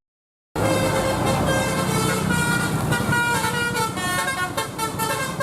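Telolet basuri bus horn playing a tune of stepped musical notes, starting about half a second in, over the low running of the bus engine.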